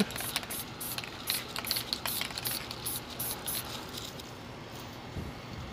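Aerosol spray paint can spraying black paint onto a canvas in short hissing bursts over the first few seconds, lightly shading one side of a painted planet, then quieter.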